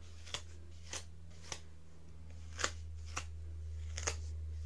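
A comb drawn through hair in about six short, sharp strokes, unevenly spaced, over a steady low hum.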